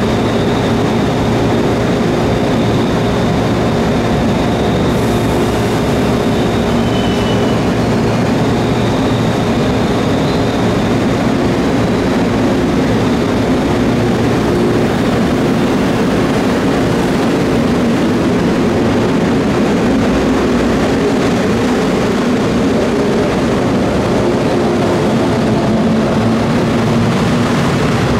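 Resistor-controlled 113-series electric train pulling out from the platform, its traction motors and wheels running steadily as the cars pass.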